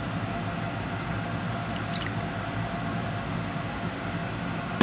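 Water poured from a jug into a hot frying pan of rice, splashing and running over a steady low hum.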